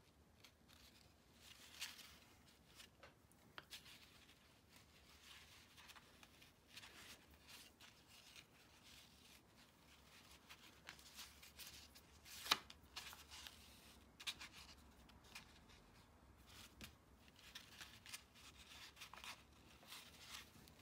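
Faint rustling and brushing of wool yarn being drawn through knitted fabric and over a brown-paper template during hand embroidery, with small handling clicks and one sharper click a little past halfway.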